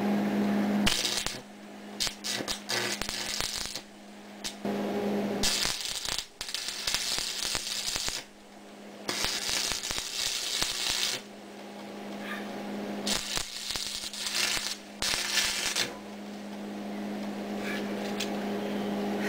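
Stick (arc) welder crackling and sizzling in four bursts of a few seconds each as the rod lays beads on a steel pipe sleeve joining a steering shaft to a steering gear. A steady low hum runs underneath and is plainest between the bursts.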